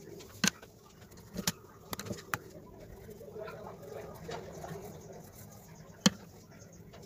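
A few sharp clicks and taps as colored pencils are handled, swapped and set down on the paper, the loudest a little after six seconds in, over a faint steady background murmur.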